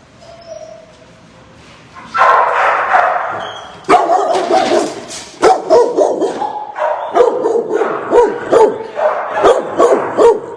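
Dogs in shelter kennels barking. They start about two seconds in, and from about four seconds in the barking is rapid and almost unbroken.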